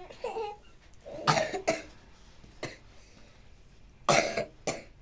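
A person coughing: two short bouts of two coughs each, one about a second in and one near the end.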